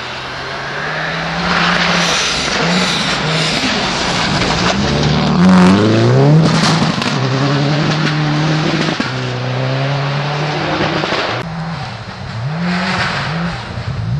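Rally car engines revving hard on a snow stage, the pitch climbing and dropping sharply through gear changes, over a hiss from the tyres throwing up snow. One of the cars is a Subaru Impreza rally car with a turbocharged flat-four.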